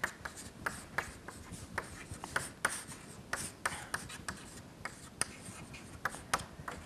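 Chalk writing on a chalkboard: a run of irregular sharp taps and scratches as letters are stroked out.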